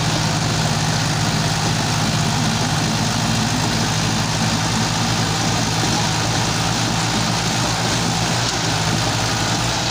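Diesel engines of two tractors, a Swaraj 855 FE and a Powertrac Euro 50, running hard at a steady pitch while they pull against each other under heavy load, their rear wheels spinning in sand.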